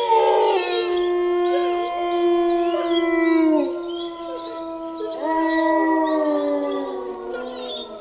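Several wolves howling together in chorus: long, held howls at different pitches overlapping, some sliding down and new ones rising about five seconds in, the chorus fading out near the end.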